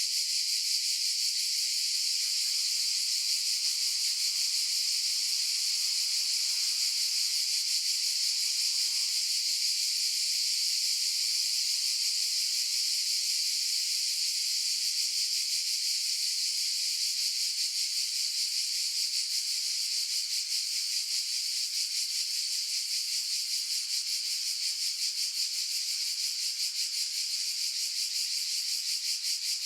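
Cicadas buzzing in a steady, continuous high-pitched drone with a fast pulse.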